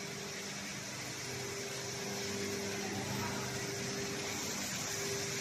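Steady hum of running machinery, with a low drone that fades in and out.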